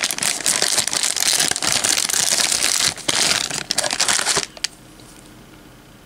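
Clear plastic bag crinkling and rustling as it is handled and opened to take cables out. It stops about four and a half seconds in.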